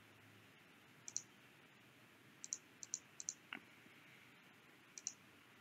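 Faint computer mouse clicks: about five quick clicks, most heard as a close double tick of press and release.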